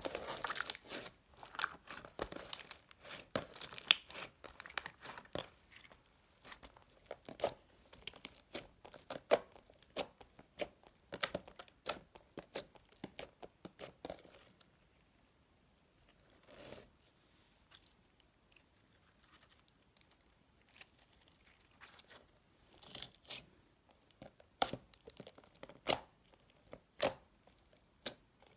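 Store-bought floam slime being handled, its foam beads giving many sharp crackling and crunching pops. The pops come thick at first, thin out to a near-quiet stretch in the middle, then pick up again near the end.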